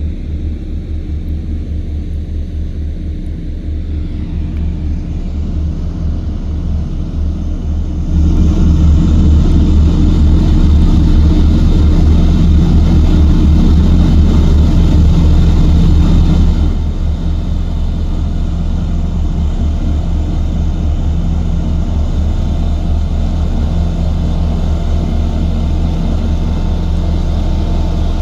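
Engine of heavy earthmoving machinery running with a steady low rumble. It gets louder about eight seconds in and drops back about eight seconds later.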